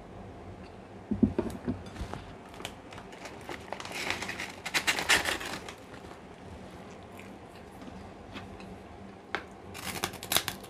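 Eating sounds: a few light knocks about a second in, a crinkling rustle around four to five seconds in, then sharp crunches near the end as a crisp kerupuk cracker is bitten.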